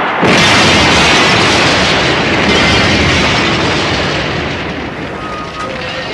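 A truck crashing down a cliff: a sudden loud crash about a quarter second in, then a long, dense crashing noise that slowly fades over the last couple of seconds.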